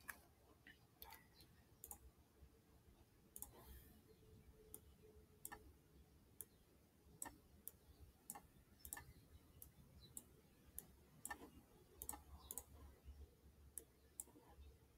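Near silence with faint, irregular clicks from a computer pointing device, about one or two a second, while text is highlighted in a document on screen.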